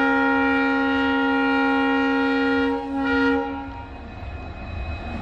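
WDP-4D diesel locomotive sounding its multi-tone horn in a long blast, with a short break near three seconds in and a brief final note. The horn stops at about three and a half seconds, leaving the low rumble of the approaching train, which grows louder.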